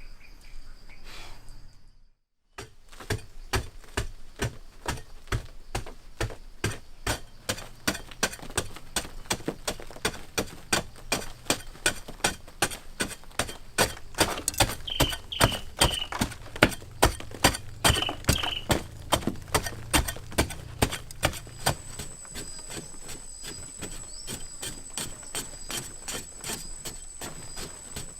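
A rapid series of sharp knocks, about two to three a second, growing louder in the middle and easing off near the end, with a steady high whine coming in during the last few seconds.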